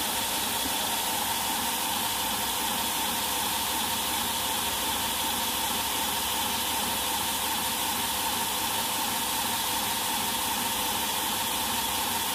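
Belt grinder running steadily: an even hiss with a few faint steady tones, unchanged throughout.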